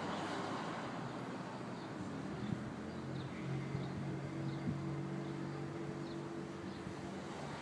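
A motor running steadily at a low pitch, with a few faint high chirps over it.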